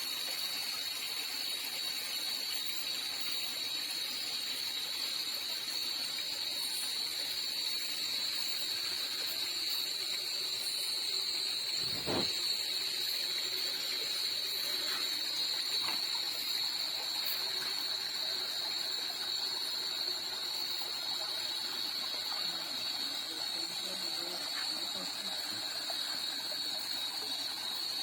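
Night insect chorus: a steady, high-pitched drone that doesn't let up, with a single knock about twelve seconds in.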